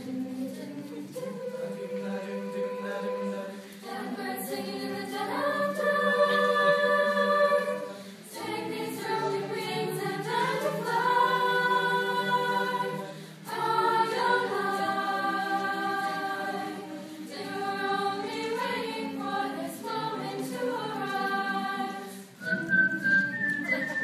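Mixed high-school choir singing held chords in phrases, the voices swelling and then dropping off briefly every few seconds between phrases.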